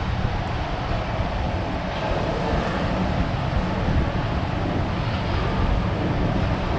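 Steady low background rumble with no distinct strikes or clicks standing out.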